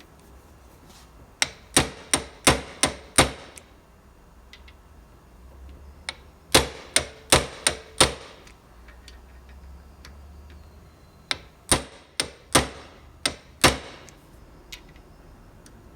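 Sharp knocks, in three bursts of about five or six quick strikes each, a few seconds apart.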